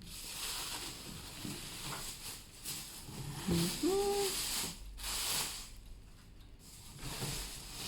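Rustling and handling of packaging as a newly delivered microwave is unboxed, an uneven scratchy hiss that rises and falls, with a short hummed voice sound about four seconds in.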